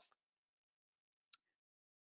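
Near silence, with one faint brief click a little over a second in.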